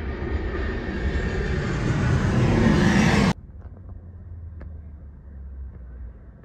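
Twin-engine jet airliner passing low overhead on approach with its landing gear down, its engine noise growing steadily louder and then cut off abruptly a little over three seconds in. A much quieter low rumble with a few faint clicks follows.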